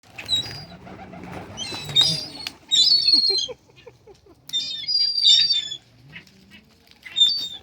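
A flock of birds chirping in about five short bursts, with wings flapping among the calls.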